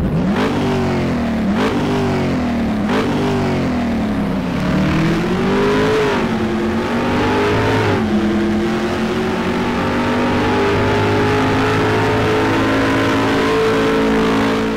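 Race car engine revving, with three quick rises and drops in pitch like gear changes, a slower rise and fall, then a steady high pitch from about halfway through.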